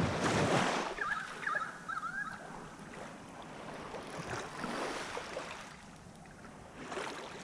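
Shallow water sloshing around wading legs with gusts of wind on the microphone, loudest in the first second. A short run of high chirps comes about a second in.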